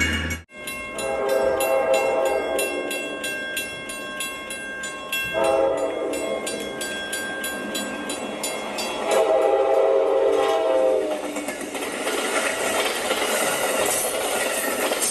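Amtrak P42DC diesel locomotive's horn sounding three blasts: a long one, a short one, then a medium one. A bell rings rapidly underneath through the first two-thirds, and the rumble of the passing train carries on after the horn stops.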